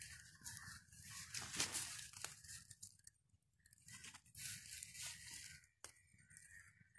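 Faint rustling and crunching of dry leaves and twigs, in irregular bursts with a short pause about three seconds in.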